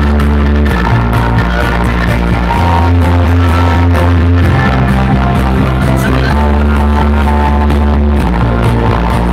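Loud DJ music over a nightclub sound system: heavy held bass notes that change every second or two under a steady beat.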